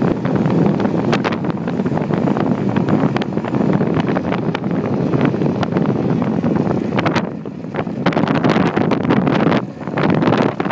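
Heavy wind buffeting the phone's microphone from riding an e-bike at speed: a loud, gusty rush with flutter, easing briefly twice near the end.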